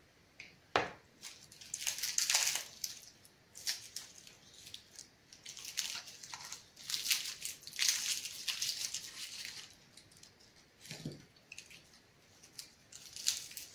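Dry, papery garlic skins crackling and rustling as a head of garlic is broken apart into cloves by hand, with a sharp knock about a second in.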